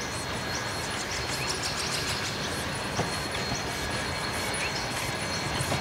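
Queensland Railways BB18¼ class steam locomotive approaching with its train of carriages: a steady running noise with one sharp tick about halfway through.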